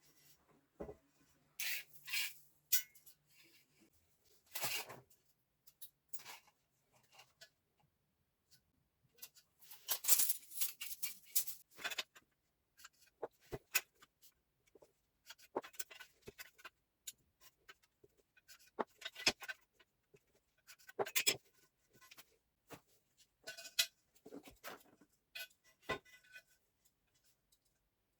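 Irregular clinks, taps and short scrapes of tools and metal parts being handled, in scattered clusters with gaps between them.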